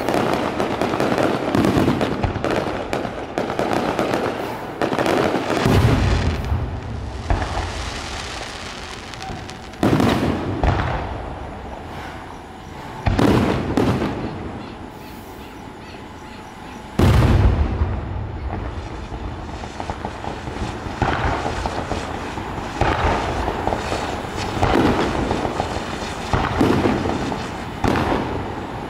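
Aerial firework shells bursting overhead in quick succession: several heavy booms, the biggest about 17 seconds in, with a dense run of pops and crackles between them.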